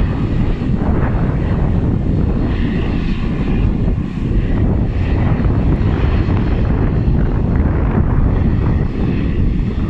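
Twin turboprop engines of a De Havilland Canada Dash 8 Q400 airliner running with its six-blade propellers turning, a loud, steady low drone.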